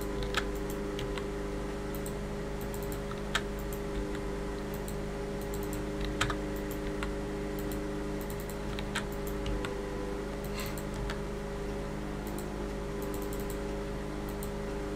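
Sparse, irregular clicks of a computer keyboard and mouse over a steady low hum.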